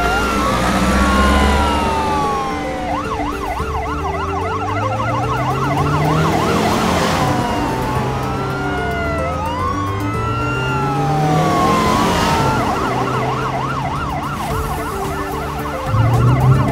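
Ambulance siren switching back and forth between a slow falling wail and a fast yelp, over a vehicle engine that rises in pitch again and again as it speeds up.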